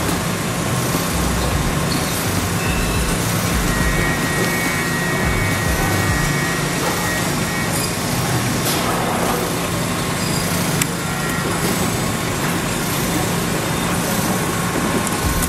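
Steady machinery noise on an eyeglass-frame factory floor: an even hiss with a constant low hum and faint steady whines.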